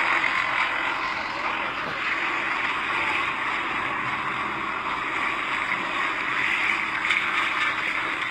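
Plaster spraying machine for cement render running steadily, a constant machine drone and hiss with no change in pace.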